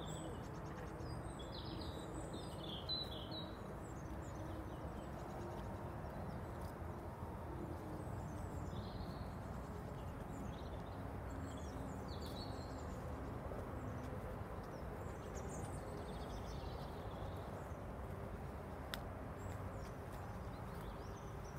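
Footsteps walking on a tarmac path over a steady outdoor background hiss, with small birds chirping now and then.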